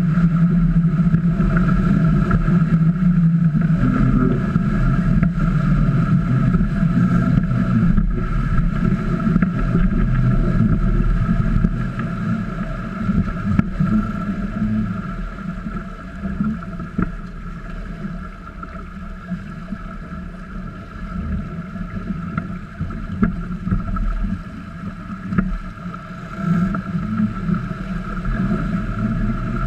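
Water rushing and splashing along the hulls of a small trimaran under sail, with wind buffeting the microphone; louder for about the first twelve seconds, then easing and coming and going.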